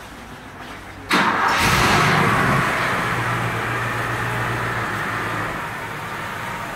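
Mercedes-Benz 450 SEL 6.9's 6.9-litre V8 starting: the starter cranks briefly about a second in and the engine catches almost at once, running loudest just after it fires, then easing down to a steady idle over the next few seconds.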